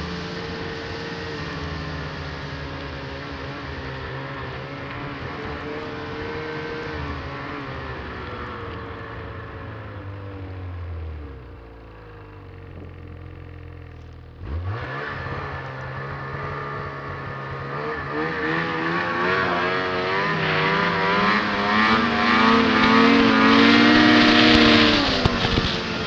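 Snowmobile engine running along at speed, then easing off to a low, quiet run around eleven seconds in. About fourteen seconds in it is throttled up hard, and the revs climb steadily to a loud peak near the end before backing off.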